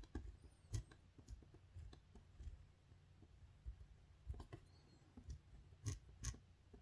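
Pen writing on paper, faint: the tip scratching and ticking as strokes begin and lift, with a few sharper taps, two of them close together near the end.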